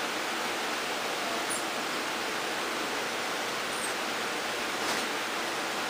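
Steady hiss, with a few faint soft clicks of Pembroke Welsh Corgi puppies lapping mush food from a dish.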